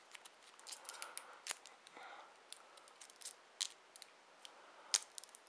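Clear plastic packaging being handled as a Bluetooth headset is worked out of its tray: faint scattered clicks and rustles, with a sharper click just before the end.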